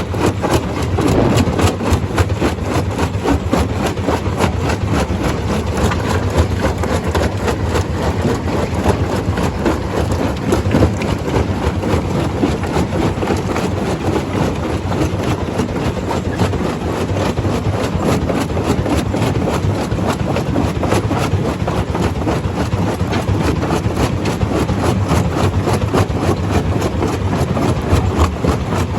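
Stone crusher running: a steady heavy engine drone with a dense, irregular clatter of rock being crushed.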